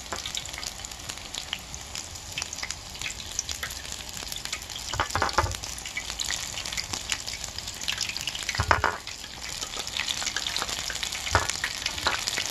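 Battered onion rings and purple sweet potato deep-frying in hot oil in a wide pan: a steady crackling sizzle, with a few louder knocks about five, nine and eleven seconds in.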